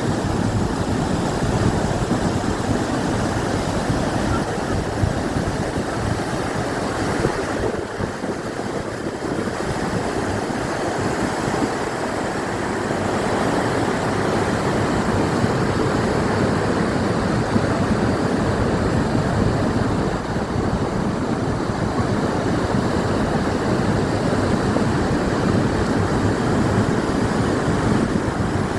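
The River Ure cascading over broad limestone steps at Aysgarth Falls' Lower Force, making a steady, even rush of falling water.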